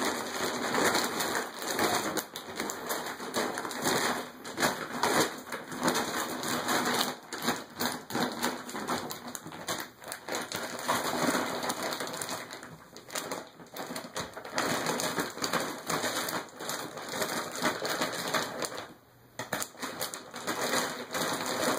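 Empty dog food bag crinkling and rustling in irregular bursts as a dog wrestles with it, with a brief lull near the end.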